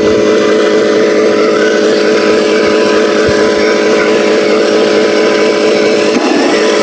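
Simulated diesel truck engine sound of an RC Scania truck running steadily with an even pulse, thin in the bass, with a faint high whine above it; it turns rougher about six seconds in.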